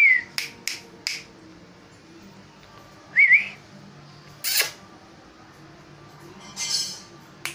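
A person whistling two short rising-and-falling calls, at the start and about three seconds in, with several sharp clicks and a short hiss between them, calling a dog's attention.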